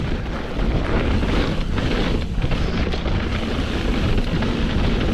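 Wind buffeting the microphone of a mountain bike rider's on-board camera, with the tyres and bike rattling irregularly over rocky trail.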